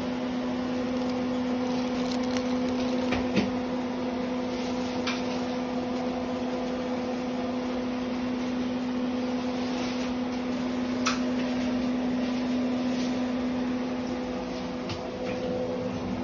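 Microwave oven running: a steady electrical hum, with a few faint clicks.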